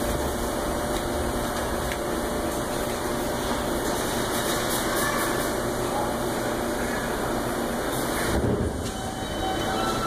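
R142 subway train standing at the platform, a steady hum from its running equipment filling the station, with a short knock about eight seconds in.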